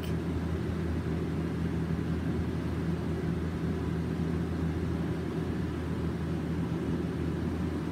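Steady low hum of room background noise, even and unchanging.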